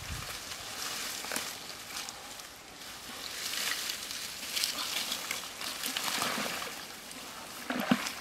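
Dry grass and brush rustling, with many small snaps, as a person pushes down through it, then a splash near the end as a foot steps into shallow river water.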